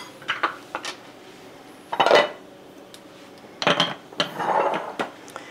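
A metal spoon and ceramic bowls clinking and knocking on a counter: a handful of separate clinks, the loudest about two seconds in, and a short scraping rub a little past the middle.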